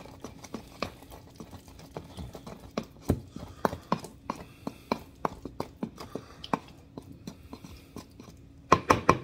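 Pestle grinding and knocking in a wooden mortar, crushing anchovies and black pepper into a paste: irregular soft knocks and scrapes, a few a second, with a quick run of louder knocks near the end.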